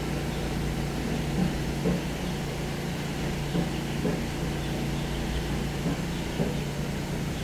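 Recorded steam locomotive sounds playing from the exhibit's loudspeaker: a steady low rumble with scattered irregular knocks.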